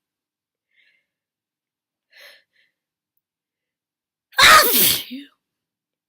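A single loud human sneeze about four seconds in, its voiced part dropping in pitch as it ends.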